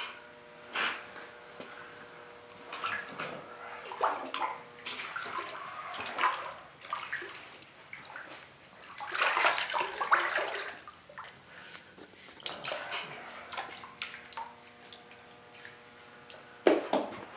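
A bare hand stirring and sloshing through liquid ceramic glaze in a plastic bucket, in irregular swishes and splashes, loudest about midway. The glaze is being felt to judge whether it is too thin or too thick.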